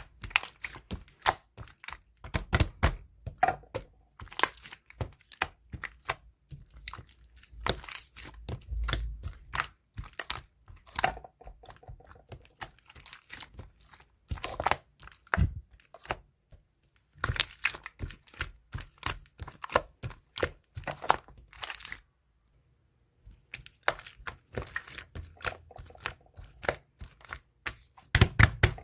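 Blue marbled slime being squished, stretched and pressed by hand, giving rapid sticky clicks and pops. There is a pause of about a second roughly three quarters of the way through.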